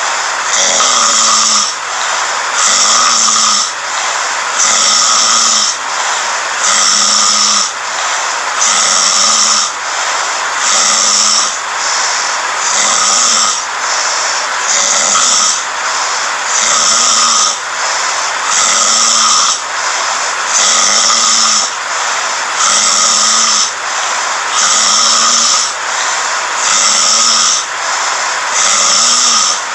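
A sleeping person snoring in an even rhythm, about one snore every two seconds.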